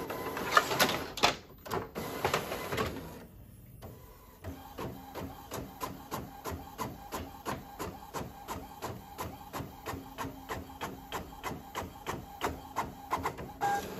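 Epson WorkForce WF-7720 inkjet printer printing a sheet. It rattles loudly for a few seconds as it starts up, pauses briefly, then ticks steadily about four times a second as the print head passes across the page, stopping near the end.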